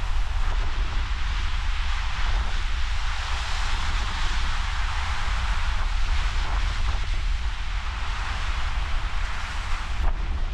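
Wind buffeting the microphone in a low, steady rumble over the continuous hiss of ocean surf.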